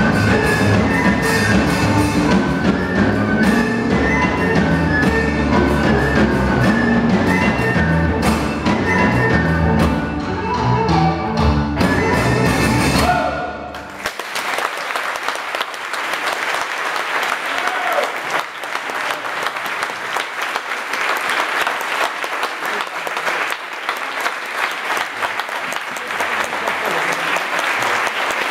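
Live ensemble of violin, flute and drum playing a folk-jazz tune that ends abruptly about halfway through. Audience applause follows for the rest.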